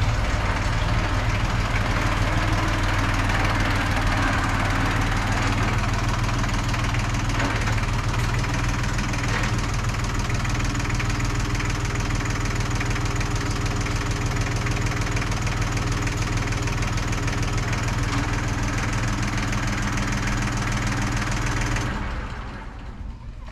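2007 Jinma tractor's diesel engine running steadily as the tractor is driven, then shut off near the end.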